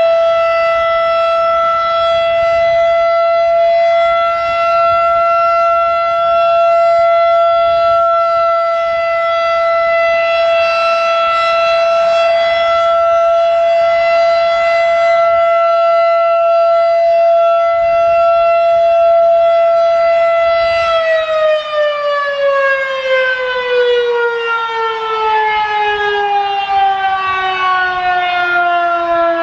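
FE Model 5 electromechanical outdoor warning siren sounding a steady alert tone, the end of its 3-minute full-alert test cycle. About 21 seconds in, it cuts off and its pitch winds slowly down as the rotor coasts to a stop.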